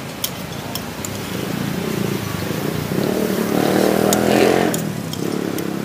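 A motorcycle engine passes, growing louder to a peak about four seconds in and then fading. Spoon and fork click and scrape on a ceramic plate throughout.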